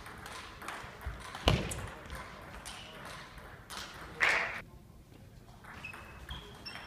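Table tennis ball clicking off bats and the table in a rally, with one loud sharp knock about a second and a half in. A short loud noisy burst follows around four seconds in, and brief high squeaks, like sports shoes on a hall floor, come near the end.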